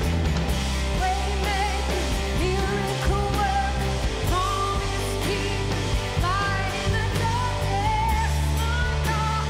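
Live worship band playing a contemporary worship song: a woman sings the lead melody over acoustic guitars, electric bass, electric guitar and a drum kit.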